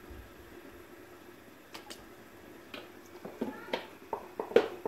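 A spoon clinks against a large pan as cooking oil is poured in: several short clinks and brief squeaks in the second half, over a faint steady hum.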